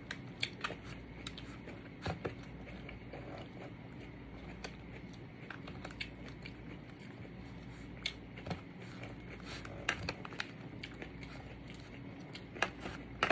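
Close-up chewing and biting of a chicken Caesar salad, with irregular wet mouth clicks and small crisp crunches.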